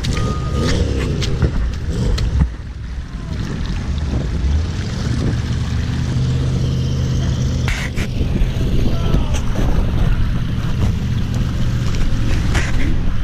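Skid steer engine running steadily under load as the bucket pushes through mud and water, with muddy water sloshing and rushing around the bucket. There are occasional knocks and rattles.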